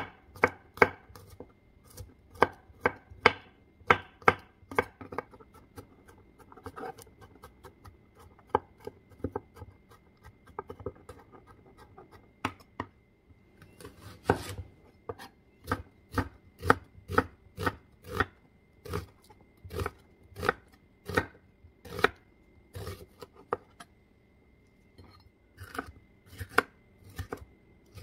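Kitchen knife chopping garlic, onion and red bell pepper on a wooden cutting board: a long run of sharp knocks of the blade on the wood, one to three a second, with a short pause near the end.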